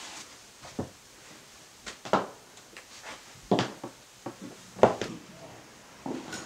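About seven knocks and thumps at uneven intervals, each with a short ring after it; the loudest come a little after two seconds and just before five seconds in.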